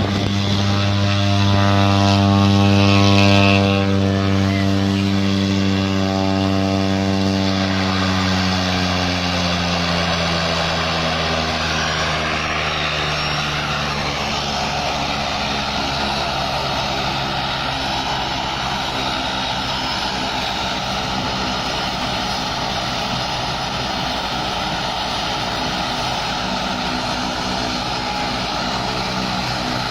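Propeller aircraft engine running loud, loudest about three seconds in. Its pitch then slides steadily down over the next ten seconds and settles into a steady drone.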